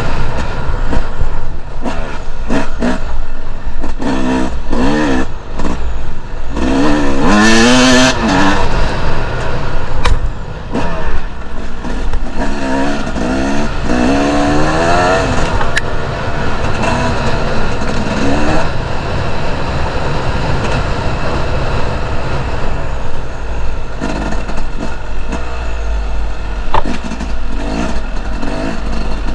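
Two-stroke enduro motorcycle engine revving up and falling off again and again while riding off-road, with a steady low rumble beneath.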